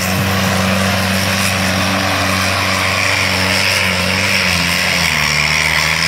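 Diesel tractor engine working hard under heavy load in a tug-of-war pull, a loud steady drone whose pitch starts to waver a little over halfway through.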